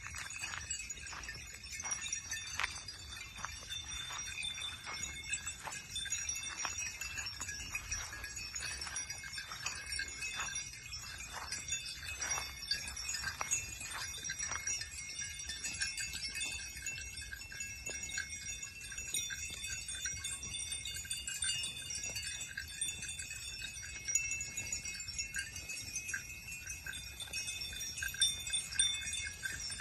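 Cow bells clanking and ringing on cows grazing, with frequent clinks over the first half and a steadier ringing after that.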